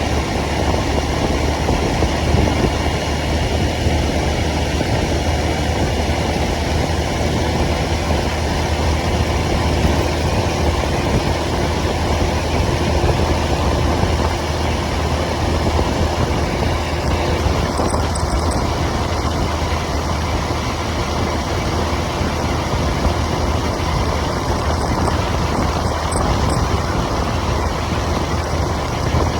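Motorcycle engine running steadily with a constant low hum, under an even rush of road and wind noise.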